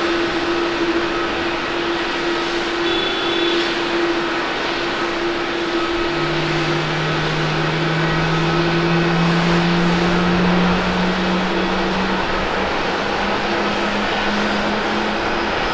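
Twin jet engines of a Japan Airlines Boeing 767-300 rolling along the runway: a loud, steady engine noise with a steady hum, joined about six seconds in by a lower hum that rises slowly in pitch.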